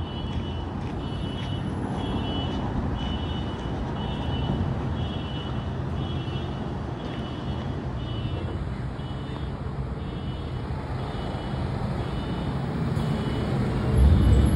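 Steady rumble of road traffic on the overpass above, with a high beeping repeating about twice a second. Near the end a heavier vehicle rumble swells up.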